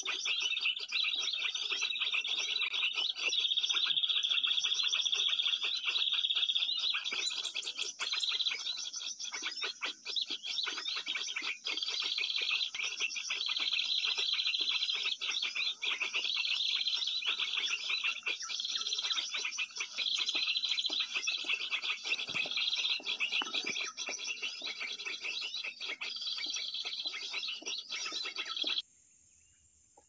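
Dense, continuous high-pitched bird chirping and twittering, with a phrase that repeats about every second and a quarter. It cuts off abruptly near the end: a recorded bird-lure call played from a speaker to draw small birds to the glue-stick perch.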